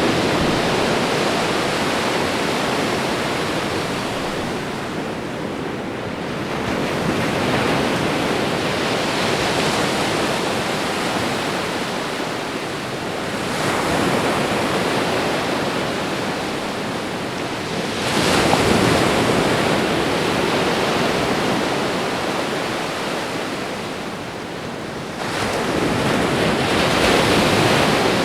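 Ocean waves washing onto a shore in repeated swells, a new wave breaking every four to six seconds and hissing as it draws back.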